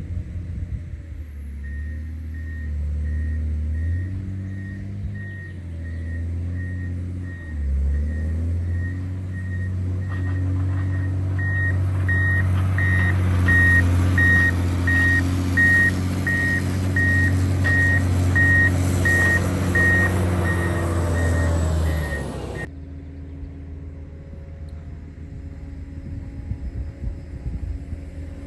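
Motor grader's diesel engine running while its reversing alarm beeps steadily, about three beeps every two seconds; the engine grows louder from about eight seconds in. Near the end the beeping and the louder engine sound cut off suddenly, leaving a quieter engine running.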